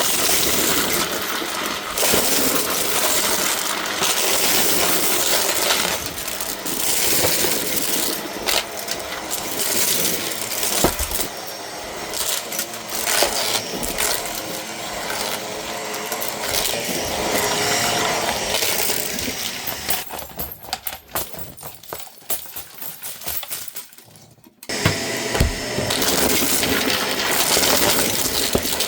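Shark vacuum cleaner running and sucking up a scattered debris mix, which rattles and clinks as it is pulled through. It quietens for a few seconds about two-thirds of the way in, then comes back at full strength.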